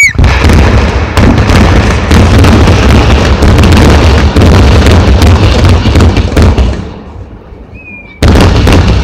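Fireworks display barrage: rapid, overlapping booms and sharp cracks, very loud, dying away about seven seconds in, then another loud burst near the end.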